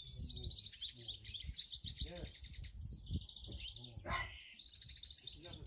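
Cock finch mules (canary–finch hybrids) singing in their cages: fast rattling trills and rolls mixed with quick chirps, with more than one bird going at once. A quick downward-sliding note comes about four seconds in.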